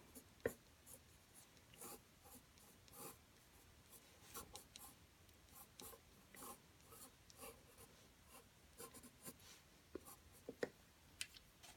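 Faint, irregular scratches and light taps of a marker nib drawing on paper.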